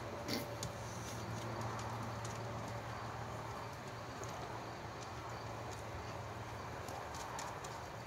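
Backyard chickens pecking at kale on wooden boards and grass: faint, scattered taps over a steady low hum.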